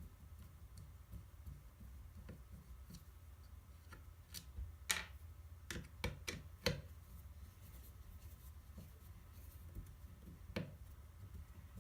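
Light clicks and taps of hand tools and small sander parts being handled during disassembly. A few sharper knocks come in the middle and once more near the end, over a low steady hum.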